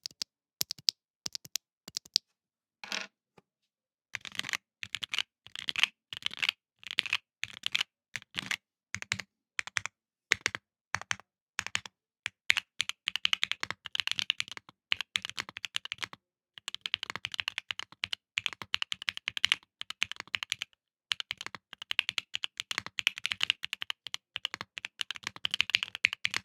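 Custom 60% mechanical keyboard with Gateron EF Curry linear switches, a Neo60Core aluminium case and KAP Disconnected Dark keycaps being typed on. A few separate keystrokes at first, then about four seconds in, steady fast typing with a couple of brief pauses.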